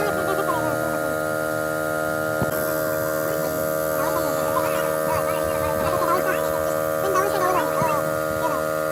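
A steady machine hum made of many even tones, holding one pitch throughout.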